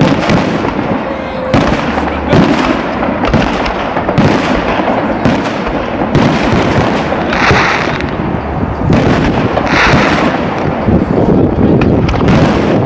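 New Year fireworks going off in a dense, unbroken string of bangs. About halfway through there are two short stretches of brighter, hissing crackle.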